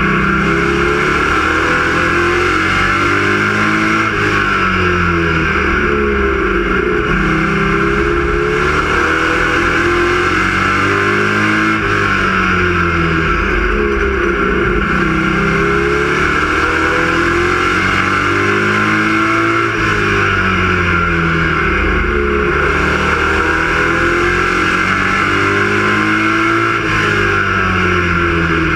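A Sportsman stock car's V8 engine heard from inside the cockpit at racing speed, loud throughout. Its pitch rises and falls again and again every couple of seconds as the driver accelerates and backs off around a short oval.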